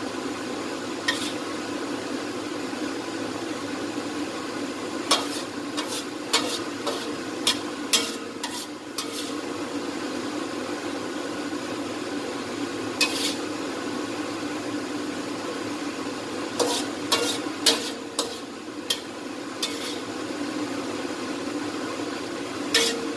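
A metal spatula scraping and clinking against a wok and a plate as a stir-fry of tempe, chicken gizzards and long beans is served out, a dozen or so sharp clinks at irregular moments. A steady hiss runs underneath.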